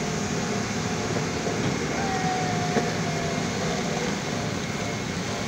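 Heavy diesel engine running steadily, a low rumble with a haze of mechanical noise over it.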